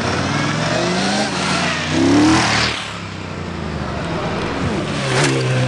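Two motorcycles accelerating toward and past, their engine notes rising to the loudest point about two seconds in, then dropping away. Another engine note builds again near the end.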